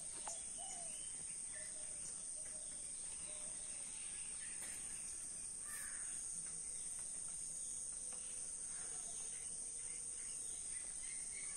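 Steady high-pitched chirring of insects, with a few faint, short bird calls scattered through it.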